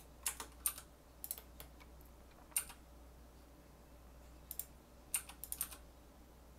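Computer keyboard keys pressed a few at a time, sharp clicks in short scattered runs, over the steady low hum of a room fan.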